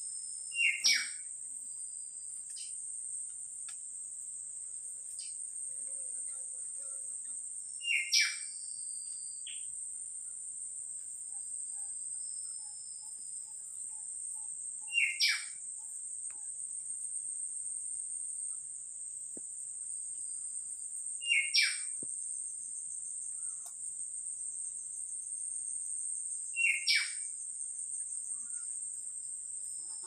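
A bird calling five times, about every six to seven seconds, each call a quick double note dropping sharply in pitch. Behind it, a steady high insect drone runs throughout.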